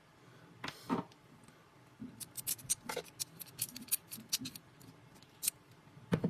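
Small hard objects handled on a work surface: a short scrape about a second in, then a quick run of light clicks and taps, ending with a louder knock.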